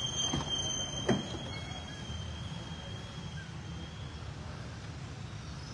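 Steady low rumble of vehicle or machinery noise, with two faint clicks in the first second or so.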